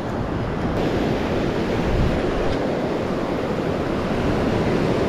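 Surf breaking and washing up over the sand, a steady rushing, with wind buffeting the microphone.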